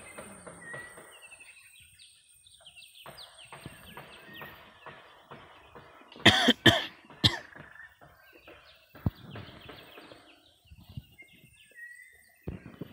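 Wild birds calling with many short, repeated falling chirps, over a high steady insect whine that fades out in the first few seconds. About six seconds in, a person coughs loudly twice, with a smaller cough a moment later.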